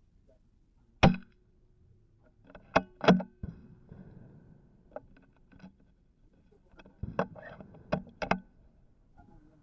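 A single sharp shot from an Anschutz 1761 rifle firing .22 LR SK Standard Plus about a second in. Metallic clicks from the bolt being worked follow about two seconds later and again in a cluster near the end.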